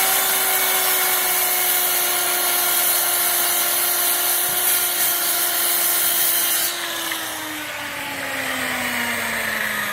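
Electric circular saw running at full speed while cutting across a veneered countertop. About seven seconds in the blade leaves the wood, and the motor winds down with a falling whine.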